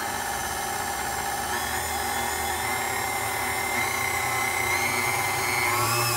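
Electric stand mixer running steadily at medium speed, its motor and gearing giving a whine over a low hum as it works a wet, sticky challah dough. The pitch shifts slightly and the hum grows a little louder near the end as the load on the dough changes.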